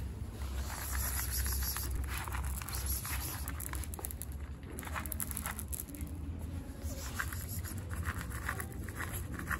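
Dry cat kibble rattling in a small cup and scattering onto marble floor tiles, in several bursts of light pattering clicks.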